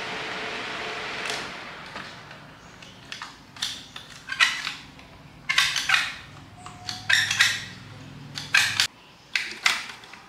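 A short hiss, then a string of sharp metallic clinks and clatters of small metal parts and tools being handled and knocked together.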